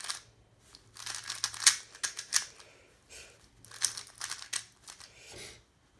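A 3x3 speedcube's plastic layers turned fast by hand during a speed solve: a rapid clatter of clicks in two quick flurries, with a pause of about a second between them.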